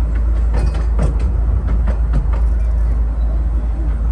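Miniature railway train running along the track, heard from on board: a steady heavy low rumble with irregular sharp wheel clicks as the wheels cross rail joints and points.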